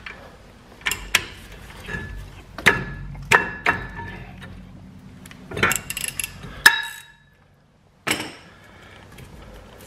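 Sharp metallic clinks and taps from a socket wrench working the bolts on a rear brake caliper as the caliper is unbolted from its bracket. Several strikes leave a short metallic ring, and the sound drops out for about a second near the end.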